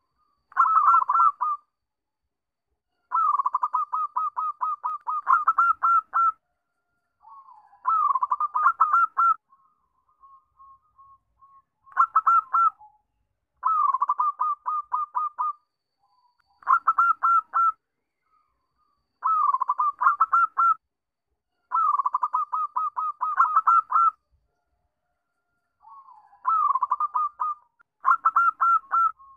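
Zebra dove (perkutut) singing: about ten phrases of rapid, staccato cooing notes, each phrase one to three seconds long with short pauses between.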